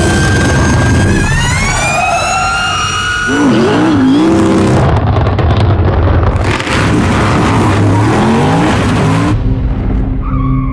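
Ford Mustang Mach-E 1400 prototype's electric motors whining and rising in pitch as the car accelerates, with tyres squealing and skidding through a smoky drift.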